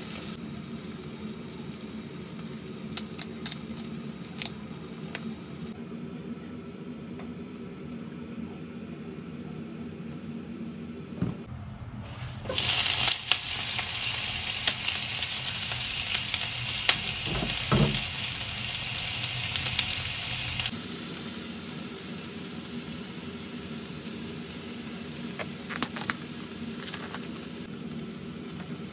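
Food sizzling in a nonstick frying pan, with the clicks and scrapes of a spatula. About twelve seconds in, sliced onions go into the hot pan and the sizzle turns loud for about eight seconds, then settles back to a gentler frying hiss as the onions are stirred.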